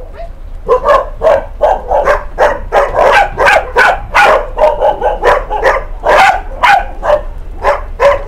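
A dog barking over and over, about two barks a second, starting under a second in.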